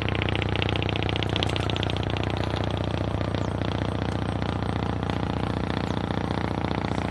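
A small engine running steadily at an even speed, with a rapid, regular putter.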